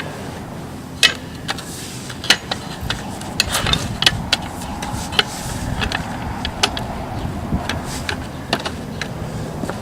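Irregular sharp clicks and knocks from prying apart a wooden pallet with a floor jack, over a steady low background hum.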